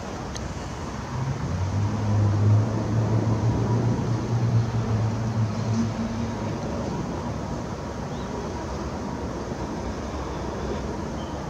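Airbus A330 twin-engine jet airliner passing overhead on approach, its engines making a steady rumble, with a low hum that swells about a second in and fades after about six seconds.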